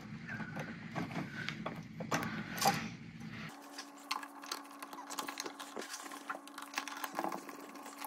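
Faint clicks and scraping of wire strippers gripping and bending the end of a copper wire into a J hook for a switch terminal screw.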